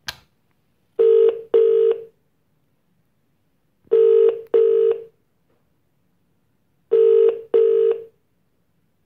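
Ringback tone from a desk phone's loudspeaker while the dialled line rings: three double rings about three seconds apart, each two short tones. A sharp click comes at the very start.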